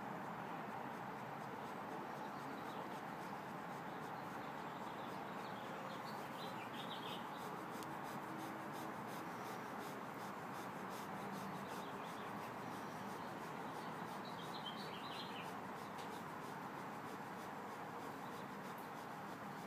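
Faint rubbing of tissue and cloth on a dog's fur and skin as her mastitic teats are wiped and hand-milked, over a steady background hiss.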